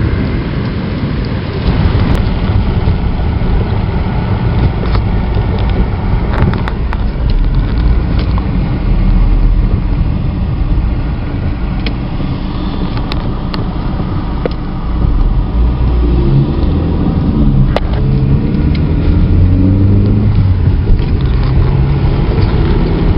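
Steady car engine and tyre noise heard from inside a car driving on a rain-soaked road. In the last third the engine note rises and falls in pitch.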